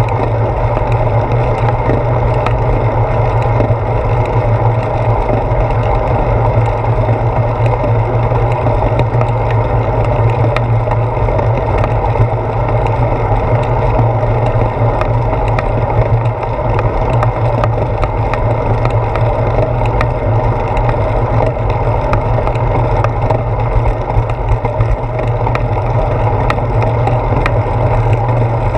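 Steady rumble of wind and road vibration picked up by a handlebar-mounted GoPro on a moving bicycle, with small clicks and rattles throughout.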